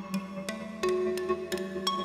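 Mutable Instruments Rings resonator playing a sequence of struck, pitched notes, about three a second, through a Clouds texture synthesizer, each note ringing on under the next.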